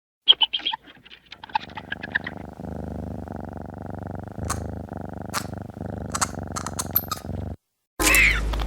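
Gamera monster sound effect: a quick run of chirps and clicks, then a low rumbling growl with sharp ticks through it for about five seconds, cut off by a short gap and a loud shrill screech near the end.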